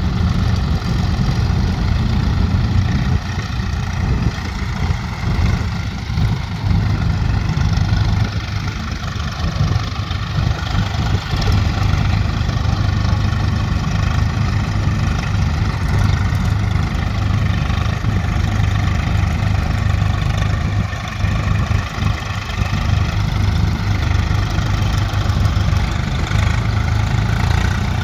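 Diesel engines of a Sonalika DI 35 tractor and a Swaraj 855 tractor running steadily side by side, the Swaraj driving a soil loader that fills the trolley with earth. A deep, even engine hum with steady higher whirring tones above it.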